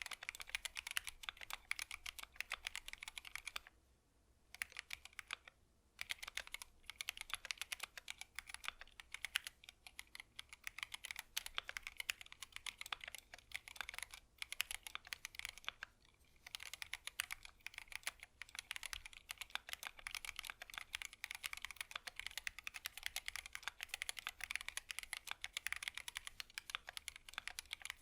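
Typing on a GMMK Pro mechanical keyboard fitted with Gateron Ink V2 linear switches: fast, continuous keystrokes, with a pause of about two seconds some four seconds in.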